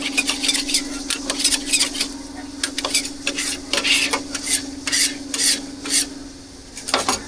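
Quick, irregular clatter of a metal utensil scraping and tapping on a pan or griddle as food is cooked, over a steady low hum.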